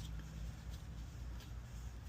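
A low steady hum with three faint, light clicks about two-thirds of a second apart.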